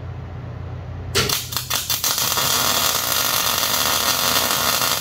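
MIG welder arc striking about a second in, stuttering a few times, then a steady crackling sizzle as a tack weld is laid on the steel truss and axle tube with the shielding gas flowing; it cuts off sharply at the end. A steady low hum runs underneath before the arc starts.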